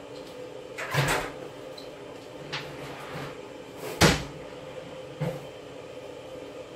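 Washing machine running with a steady hum and a series of knocks or thuds, roughly one every second and a half, the loudest about four seconds in.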